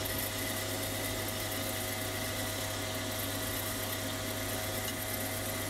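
Sieg C3 7x14 mini lathe running at a steady speed with a constant whine while a boring bar bores out a brass plain bearing.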